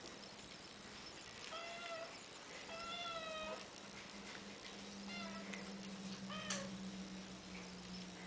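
Somali kittens meowing: four short, high-pitched meows a second or two apart.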